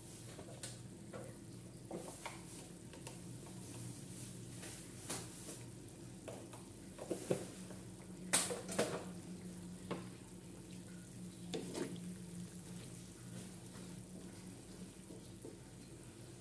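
Pork pieces simmering in sweet soy-sauce liquid in an aluminium wok: a steady sizzle over a low hum, with scattered sharp ticks and clinks, loudest a little past halfway.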